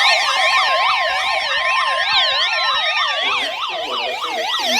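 Electronic yelp siren, its pitch sweeping rapidly up and down about three times a second, layered with a steady high tone in the first few seconds and a tone that slowly falls in pitch.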